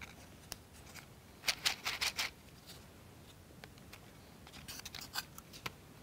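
Light clicks and scrapes of laser-cut plywood model parts being handled and pressed into place by hand, in a short cluster about a second and a half in and another near the end.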